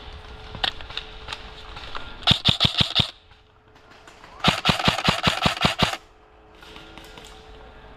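Airsoft rifle firing two bursts of rapid shots at about ten a second, the second burst longer than the first, with a few fainter single shots before them.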